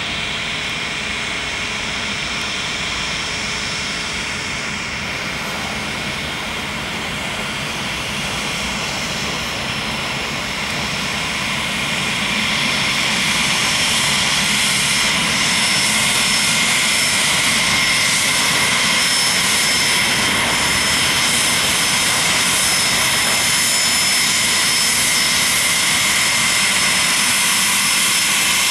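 Cessna 525 CitationJet's twin Williams FJ44 turbofan engines running for takeoff: a steady jet rush with a high whine, growing louder about twelve seconds in.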